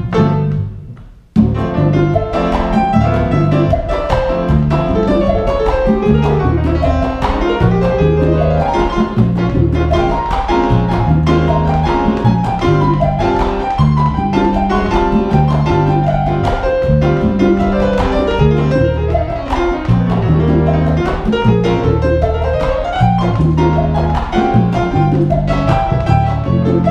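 Live jazz on grand piano with a plucked double bass walking beneath it. The music drops out briefly about a second in, then comes back in and runs on.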